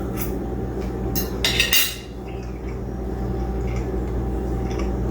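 A few short clinks and scrapes of a plate and utensils, loudest about a second and a half in, over a steady low hum.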